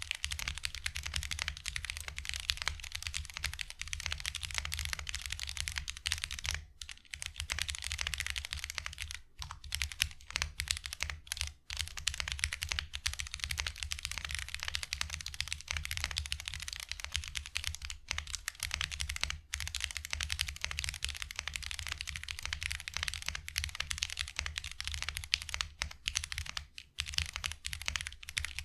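Continuous fast typing on a mechanical keyboard with stock, unlubricated Cherry MX Nixie (MX Black Clear Top) heavy linear switches: a dense run of keystroke clacks with a few brief pauses. The switches sound scratchy, with no spring ping.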